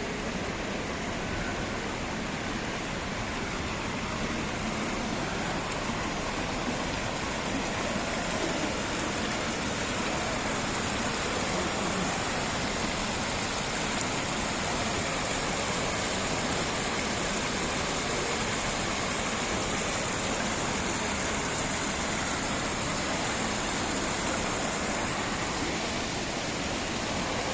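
Water fountain running, with water falling and splashing in a steady, even rush.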